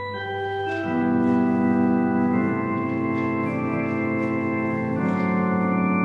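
Organ music: slow, sustained chords over a held low bass note, swelling in over the first second and changing chord a few times.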